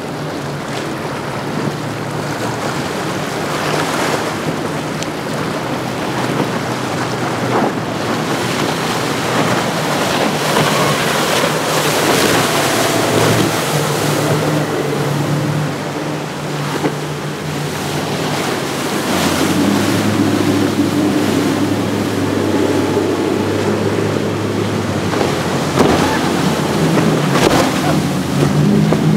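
Outboard-powered motorboats running fast through choppy inlet waves: a steady outboard engine drone under the loud rush and slap of water and spray. The engine note shifts a few times as one boat after another runs past.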